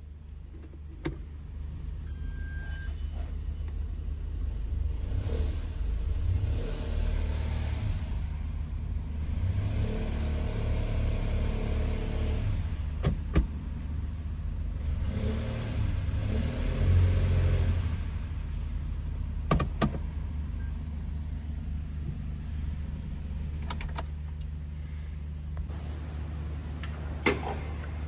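Toyota Yaris engine running, heard from the driver's seat. It swells louder three times as it is revved, with a few sharp clicks along the way. The engine is being checked for the noise of a failing drive belt tensioner.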